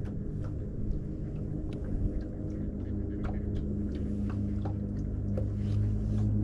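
Bow-mounted electric trolling motor running, a steady low hum, with a few faint clicks over it.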